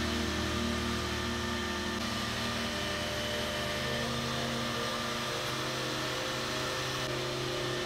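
Steady running noise of a CNC router and its dust extraction: an even hum with several constant tones that does not change.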